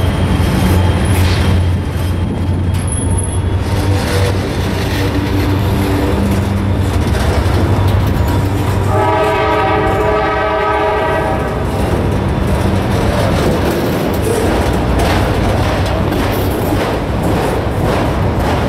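Freight train of autorack cars rolling past close by: a steady rumble of steel wheels on rail with some clatter. About nine seconds in, a train horn sounds for about two and a half seconds.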